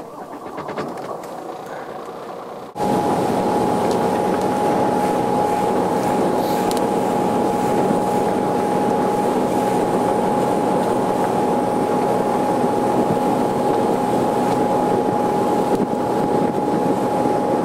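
370 hp Volvo Penta D6 diesel stern-drive engine started with the key and running at low revs, then, about three seconds in, the boat running fast: a loud steady engine drone with a steady whine over it.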